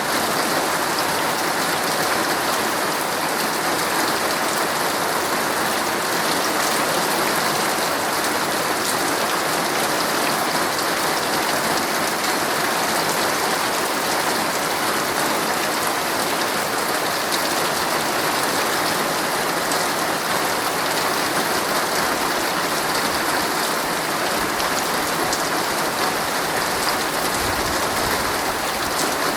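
Heavy rain falling steadily on a tent, heard from inside, as a dense even patter of drops.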